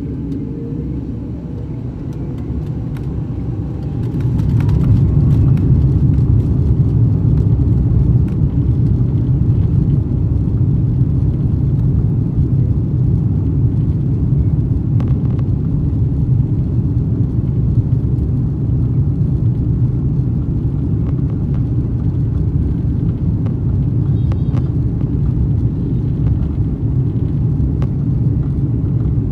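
Airbus A340-600's four Rolls-Royce Trent 500 engines heard from inside the cabin, spooling up to take-off thrust. A rising whine climbs over the first few seconds and the level steps up about four seconds in, then a loud, steady low noise of the engines and the take-off roll.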